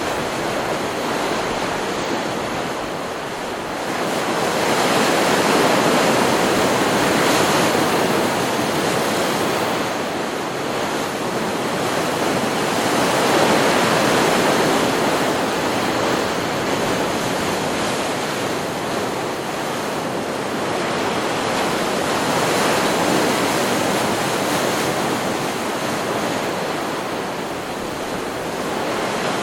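Stock recording of ocean surf on a beach: a continuous wash of breaking waves that swells and eases, with louder surges every several seconds.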